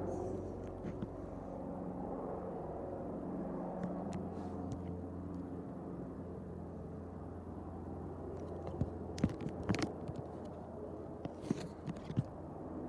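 Coastguard helicopter flying past: a steady low drone of rotor and engines that eases slightly in the second half, with a few short clicks near the end.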